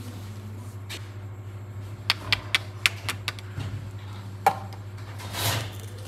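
Fingers handling a clear plastic container: a quick run of sharp clicks and taps, a single louder knock, then a brief rustle of plastic, over a steady low hum.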